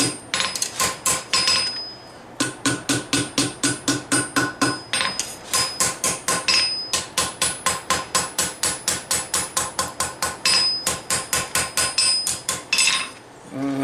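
Hand hammer striking hot steel on an anvil in a fast, even rhythm of about four blows a second, each blow ringing. This is forging the knife's tang into a subtle curved handle. The blows pause briefly about two seconds in and again near the end.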